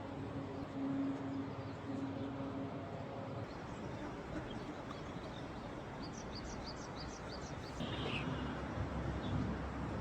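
Outdoor creekside ambience: a steady rushing hiss, with a bird giving a quick run of high chirps about six seconds in and a single falling chirp just after. A low hum runs through the first few seconds, and a low rumble comes in near the end.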